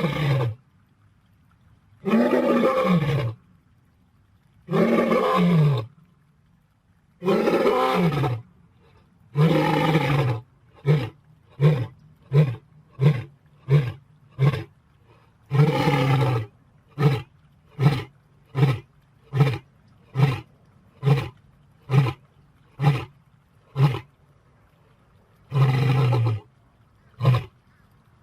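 A lion's roaring bout: several long roars, each sliding down in pitch, then a run of short grunting roars about one every 0.7 seconds, with two more long roars breaking into the series.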